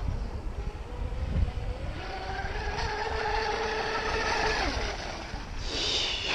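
Electric RC catamaran's motor whining as the boat runs on the water, holding a steady pitch for a few seconds before falling away, with wind rumbling on the microphone and a brief hiss near the end.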